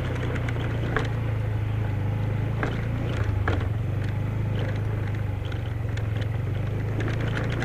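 Yamaha Xeon 125 scooter's single-cylinder engine running at a steady cruise, with scattered clicks and knocks from a loose drink container rattling on the scooter.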